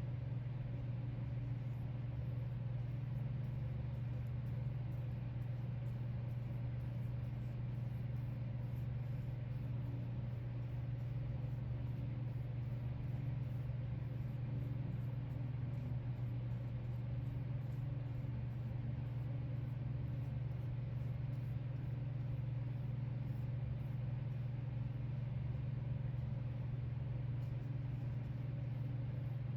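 Steady low machine hum with a faint hiss, unchanging in pitch and level.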